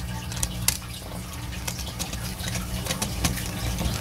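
Screwdriver tightening the green ground screw on a household electrical receptacle: small scattered metal clicks and scrapes over a steady low hum.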